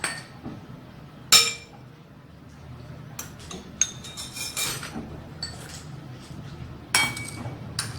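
Cutlery clinking against a plate of cooked fish balls. There are two sharp ringing clinks, about a second in and near the end, with lighter clatter between them.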